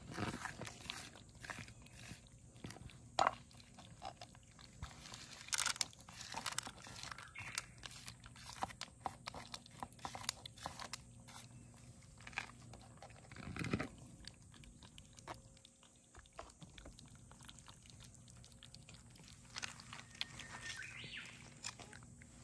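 Two cats chewing and crunching dry kibble soaked in cat milk close to the microphone, in quick, irregular crunches. There is one louder dull bump about two-thirds of the way through.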